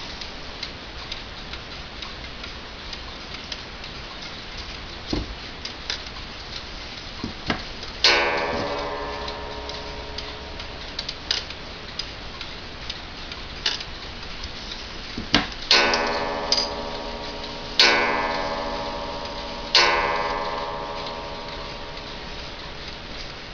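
Franz Hermle mechanical wall clock ticking steadily, then striking its chime: one ringing note about a third of the way in, then three more about two seconds apart in the second half, each ringing out and slowly dying away.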